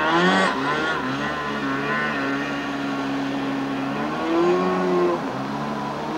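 Watercraft engine running over the water. Its pitch wavers and shifts, rising about four seconds in and easing again about a second later.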